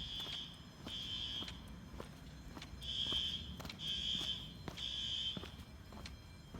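Fire alarm horns sounding the temporal-3 evacuation pattern: groups of three high-pitched beeps, each about half a second long, separated by a pause. The alarm system is being tested.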